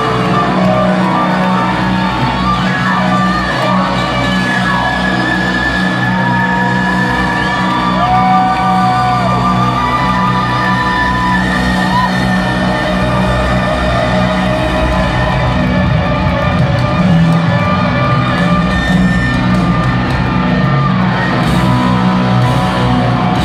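Rock band with piano playing live to a stadium crowd, heard from the stands: held notes that glide up and down over a steady low backing, with whoops and shouts from the crowd.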